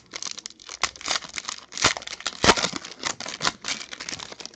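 Foil trading-card pack being torn open and crinkled by hand: an irregular run of crackles, with the loudest tears in the middle.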